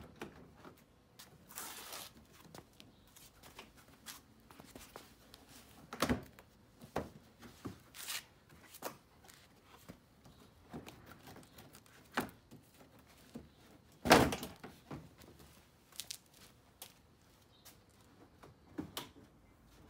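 BMW X5 E70 plastic front bumper cover being pulled off the car: scattered clicks and knocks as its clips let go, with a brief scrape about two seconds in. The loudest thunk comes about fourteen seconds in, another about six seconds in.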